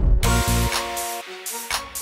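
Background music with deep bass hits.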